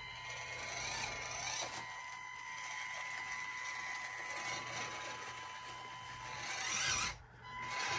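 Micro RC crawler's small electric motor and geartrain whining steadily as it climbs a foam hill, cutting out briefly about seven seconds in and then resuming.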